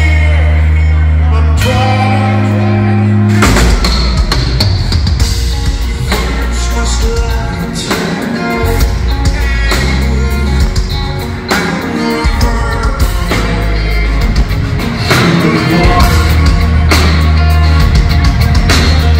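Live metal band playing at full volume, with distorted electric guitars, bass and a sung lead vocal, recorded from the audience in a large hall. It opens on held low notes, and the drums come in about three and a half seconds in with a steady beat under the full band.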